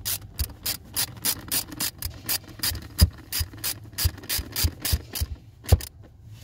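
Ratchet socket wrench clicking about three times a second as it is swung back and forth to tighten a nut on the accelerator pedal mount. The clicking stops after about five seconds, and a single knock follows near the end.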